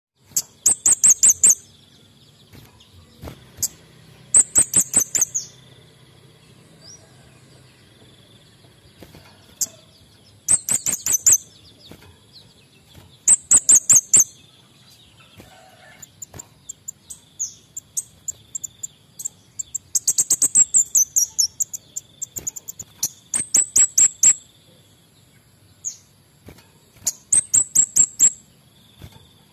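Male kemade bunga api bird singing in vigorous bursts: rapid strings of sharp, very high notes about a second long, repeating every few seconds.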